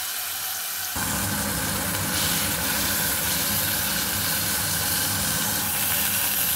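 Beef steak sizzling as it fries in oil in a saucepan, a steady hiss, with a steady low rumble joining about a second in.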